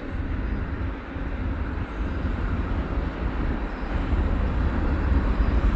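Eastbound CN freight train running past, a steady low rumble of the train on the rails.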